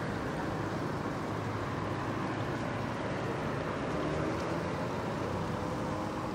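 Steady street traffic noise, with a car driving past near the end.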